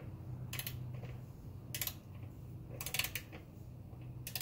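Ratchet socket wrench clicking in short bursts, four times a little over a second apart, as its handle is worked back and forth to turn a fastener.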